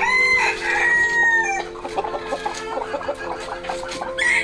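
A rooster crowing: one long crow that rises and then falls, lasting about a second and a half, with another call starting near the end.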